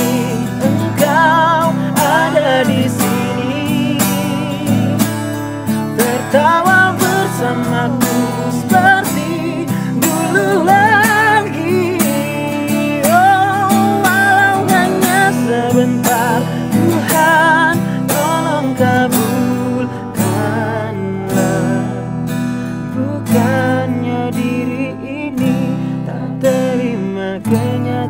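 A song: acoustic guitar strummed in steady chords under a singing voice.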